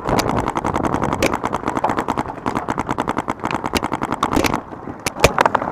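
Paintball markers firing in rapid volleys, a fast even stream of shots about ten a second, that breaks off about four and a half seconds in and is followed by a few single shots.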